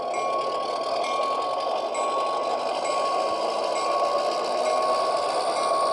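Sound decoder in an HO scale Walthers GP7 model diesel locomotive playing its diesel engine sound through a small upgraded speaker as the model gets moving, with the small whir of its motor and wheels on the track. Steady, with faint ticks about once a second.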